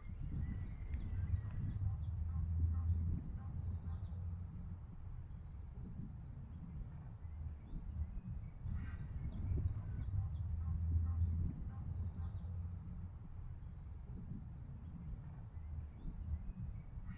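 A songbird singing the same short song twice, each phrase ending in a fast trill, over a steady low rumble.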